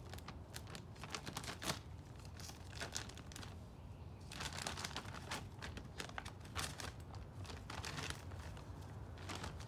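A crinkly bag of seed being handled and rummaged through, a run of small crackles and rustles.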